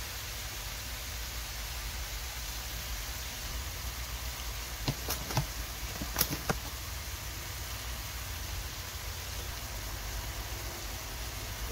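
Pork slices and spring onions sizzling steadily in a stainless steel frying pan, with a few sharp utensil clinks about halfway through.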